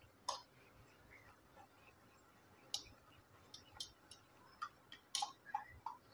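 Metal spoon stirring thin rice batter in a stainless steel pot, clicking and tapping faintly against the pot at scattered moments, several in quick succession past the middle.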